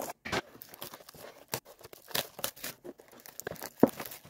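Clear plastic shrink-wrap being snipped with scissors and torn off a cardboard trading-card box, crinkling in a run of irregular sharp crackles, the loudest snap near the end.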